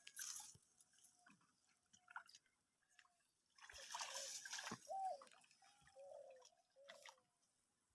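Water splashing and dripping, with the loudest stretch of splashing about four to five seconds in. A few brief faint chirps follow.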